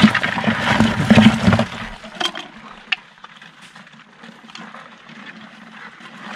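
Land crabs scrabbling and clattering inside a plastic bucket: a dense scratchy rustle of claws and legs on plastic for about two seconds, then only a few faint clicks.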